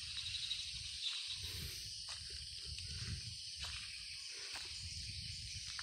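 Faint outdoor forest ambience: a steady high insect-like hiss, with a patchy low rumble on the microphone and a few faint ticks.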